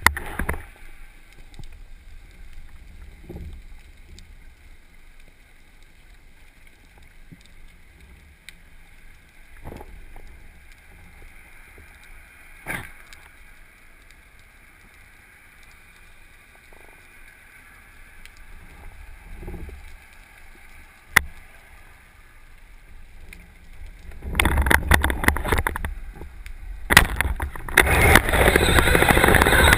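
Muffled underwater sound through a camera housing: a faint steady hiss with a few soft knocks, then a single sharp snap about two-thirds of the way through as the speargun fires. Loud rushing, rumbling noise fills the last five seconds.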